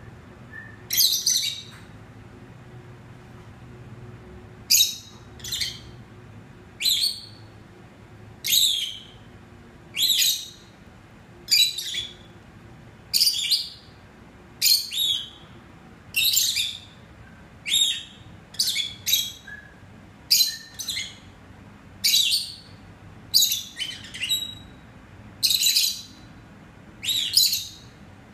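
Peach-faced lovebirds calling: a long series of short, loud, high-pitched chirps, one every second or so and sometimes two in quick succession, starting about a second in.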